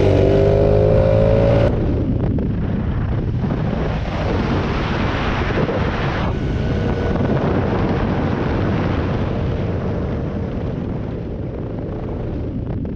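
Small two-stroke moped engine revving up, its pitch rising, until it cuts off abruptly under two seconds in. A rough, dense rumble follows and slowly fades.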